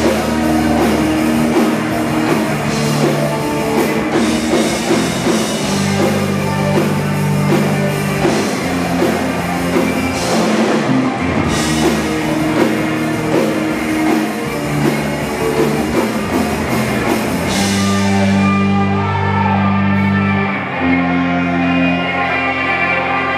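Rock band playing live: electric guitars and drum kit with a wash of cymbals over held heavy chords. About eighteen seconds in the cymbals stop, leaving the guitars sustaining long chords.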